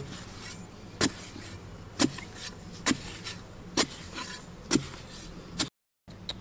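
A metal digging bar jabbed into packed earth, a sharp thud about once a second, seven strikes, over a low steady hum.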